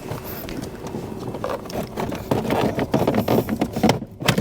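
Plastic steering column cover being worked loose and pulled off: a run of scraping and clicking plastic, with a sharp snap near the end.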